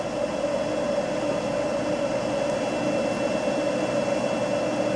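Steady droning hum with a hiss over it, unchanging throughout, with no knocks or clicks.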